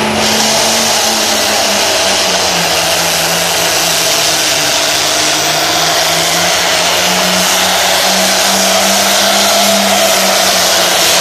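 Turbocharged diesel engine of a red International Harvester Limited Pro Stock pulling tractor running flat out under full load as it drags the weight sled. The engine note sags about two seconds in, then climbs back over the next several seconds.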